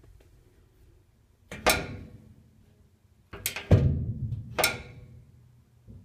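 Loud knocks and clunks from the sheet-metal top and lid of a top-load washing machine as they are handled. There is one hit about a second and a half in, then three more in the second half, each dying away with a short ring.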